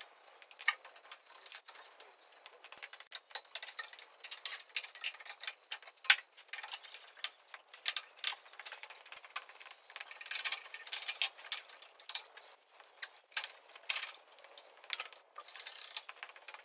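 Hand tools and bolts clicking and clinking on the steel guard box as it is bolted back around the tractor's bell housing: a dense, irregular run of short metallic clicks and rattles. The sound is thin, with no low end.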